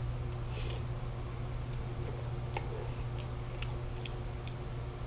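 A person eating instant ramen noodles with chopsticks: a short slurp of noodles near the start, then chewing with small scattered wet mouth clicks, over a steady low hum.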